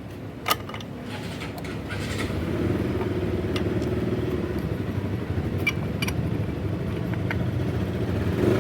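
A small two-wheeler engine running steadily, building up over the first two seconds and then holding, with a sharp metallic click about half a second in.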